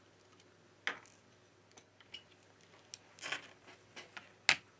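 Faint small clicks and taps of a smartphone and its small parts being handled on a work surface during disassembly: one click about a second in, a short cluster past three seconds, and the sharpest click near the end.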